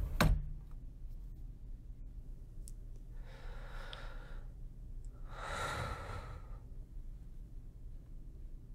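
A sharp click just after the start, like a door shutting, then a person breathes in slowly and lets out a long sigh, with faint low room hum underneath.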